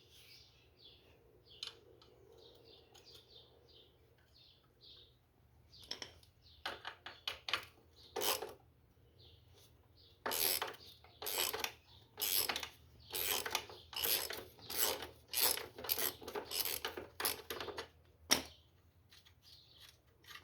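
Hand-tool work on a motorcycle engine: a run of about ten ratcheting strokes, roughly one a second and quickening, in the second half, after some faint small metal squeaks.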